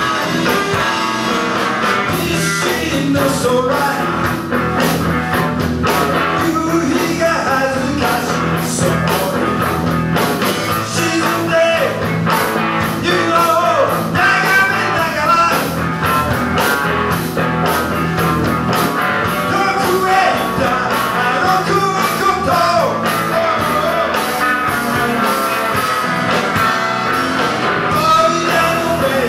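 A rock band playing live: electric guitar and drums, with a man singing over them.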